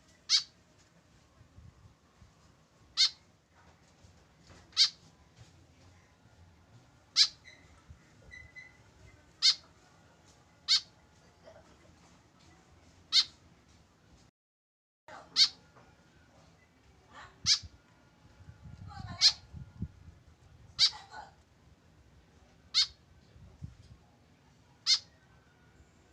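White-breasted woodswallow giving short, sharp, high calls, about a dozen of them spaced roughly two seconds apart.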